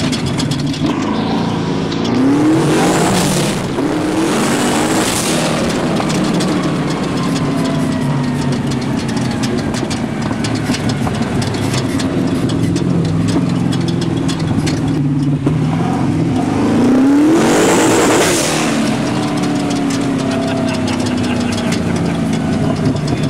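Twin-turbo LSX 427 V8 of a long-travel sand rail running hard, engine pitch rising and falling as it is driven. It has two louder surges, a couple of seconds in and again about seventeen seconds in, each with a rising rev and a burst of hiss.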